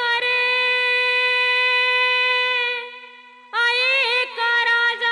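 A woman singing a Marathi devotional song in long held high notes over a soft steady drone. One note is held for nearly three seconds and fades. About three and a half seconds in, a new phrase with quick ornamented turns begins and settles into another long held note.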